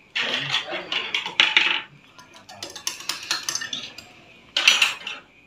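Metal spoon clinking and scraping against drinking glasses as sweetened drinks are stirred and handled, in three clattery bouts.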